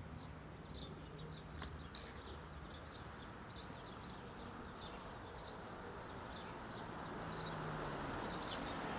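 Faint street ambience: small birds chirping in short, scattered calls over a low, steady hum.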